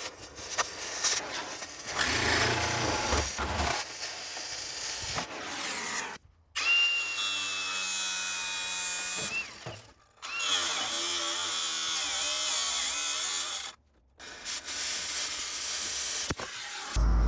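Power tools working on a scrap truck, heard in a run of short clips that cut off abruptly. One clip holds a steady high whine.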